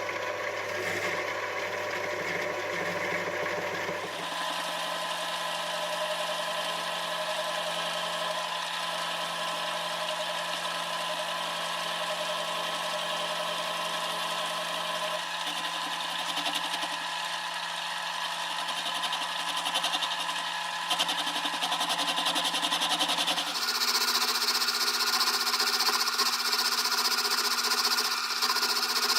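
Metal-turning lathe running with a steady mechanical hum. Its pitch steps up twice, about four seconds in and again near the end, as the spindle speed is raised.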